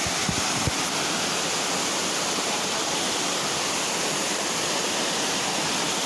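Steady rush of a cascading waterfall tumbling over rock ledges into a pool.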